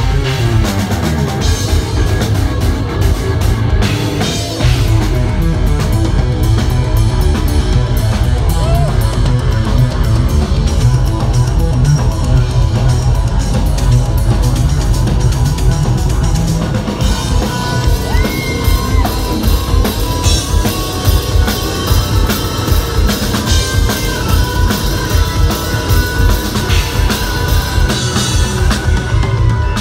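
A progressive metal band playing live and loud, with distorted electric guitar, bass guitar and drum kit. About halfway through the drums shift to fast, even beats, and held high notes ring over the top.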